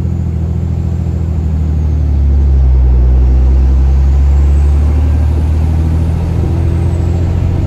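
Cummins 6.7-litre inline-six turbo-diesel pulling a moving pickup, fitted with an aftermarket cold air intake, heard from the cab with the window down. A steady deep engine drone swells louder about two seconds in and eases back after about five seconds, with the turbo's faint high whistle rising and falling over it.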